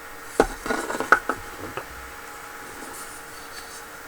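Handling noise: a quick cluster of taps and clicks in the first two seconds as the 3D-printed plastic bumper pieces are picked up and moved.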